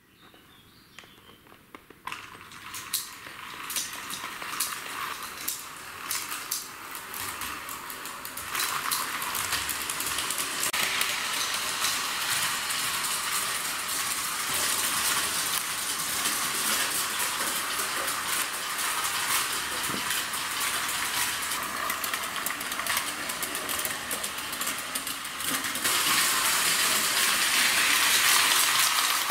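Meccano-built 0-4-0 model locomotive, powered by an original Märklin 12 V DC motor, running on metal track with three wagons: a steady rolling, whirring hiss with many small clicks of wheels on the rails. It starts faint, grows louder, and is loudest near the end as the train comes close.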